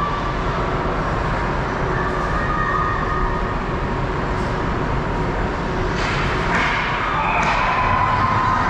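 Ice hockey rink sound during play: a steady wash of rink noise, with several sharp clacks of sticks and puck in the second half.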